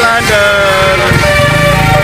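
Bus telolet horn playing a tune: held multi-tone notes that step and slide between pitches. A low rumble joins underneath about a second in.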